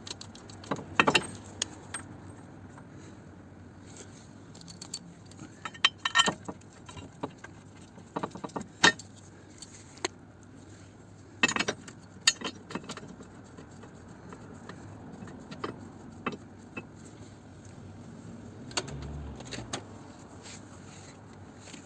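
Scattered metallic clinks and rattles of bolts and hand tools being handled while the subframe bolts are started by hand. The clinks come in short clusters a few seconds apart.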